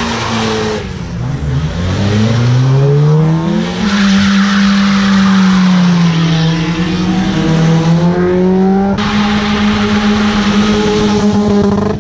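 Cars accelerating past one after another, engines revving up and dropping back several times with a sound of tyres on tarmac.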